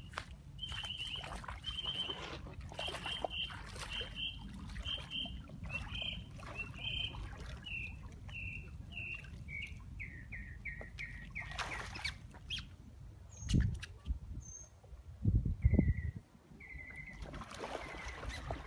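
A bird calling: a long run of short whistled notes, about two a second, that slowly drop in pitch and come closer together, with a second run starting near the end. Under it is a steady low rumble, and a few loud low thumps come about two-thirds of the way through.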